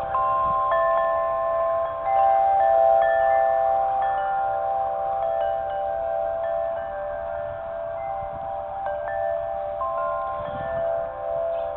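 Wind chimes ringing in the wind: new tones are struck every second or two and ring on for several seconds, overlapping one another. A faint low rumble of wind on the microphone comes and goes.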